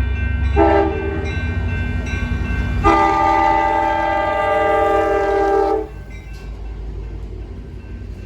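Train horn sounding a short blast, then a long blast of about three seconds, each a chord of several notes, over the low rumble of a train.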